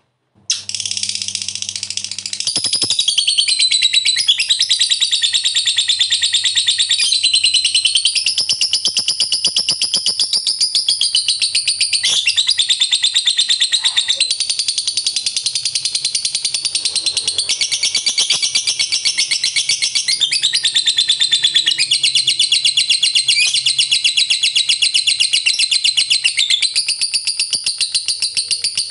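Lovebird singing its long chattering 'ngekek panjang' song: a fast, high-pitched run of notes that starts about half a second in and carries on without a break.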